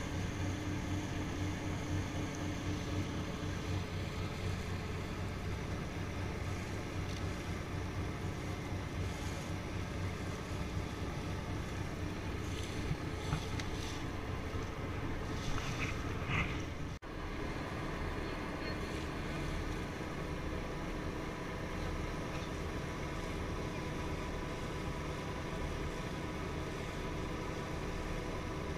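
Motorboat under way: a steady engine drone with water rushing along the hull. The sound cuts out for an instant a little past the middle and then carries on the same.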